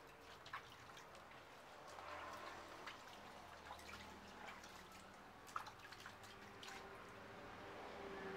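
Faint splashing and dripping of water in a plastic basin as a baby monkey is washed by hand, with scattered small drips and a couple of sharper splashes.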